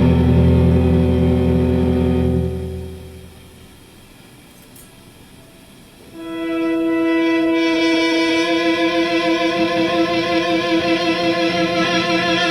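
Fender Stratocaster electric guitar through a Boss Katana amplifier, playing long sustained notes: a low note dies away about three seconds in, then after a quiet gap a higher note comes in about six seconds in and holds, with a fast wobble in loudness near the end.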